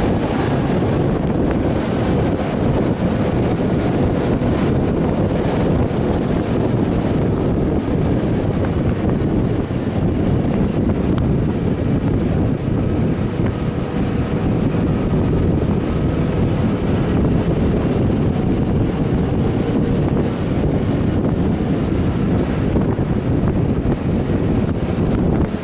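Wind rushing and buffeting over the microphone of a motorcycle-mounted action camera at riding speed, with the steady hum of a Yamaha Tracer 900's three-cylinder engine underneath.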